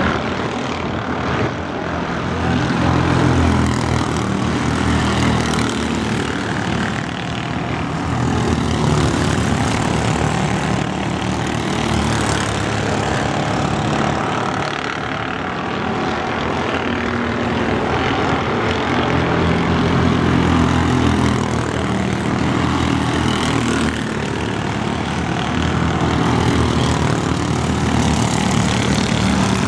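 Mini Cup race cars' engines running at racing speed around a short oval, the sound swelling and fading in pitch and loudness as the cars go around and pass. Near the end two cars pass close by.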